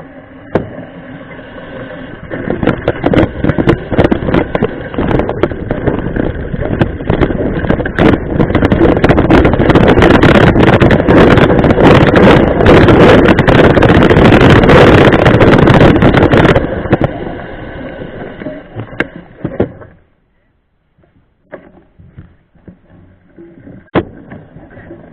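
Loud wind buffeting and dense rattling from a mountain bike ride on a rough trail, building up, peaking in the middle and fading out a few seconds before the end; a single sharp click near the end.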